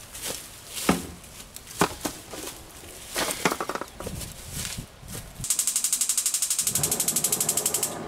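Rustling and sharp knocks of someone handling a wire-mesh fence on dry grass. About five seconds in, this gives way to a gas stove's igniter ticking rapidly and evenly, about a dozen clicks a second, and the burner flame catches with a low rush about a second before the clicking stops.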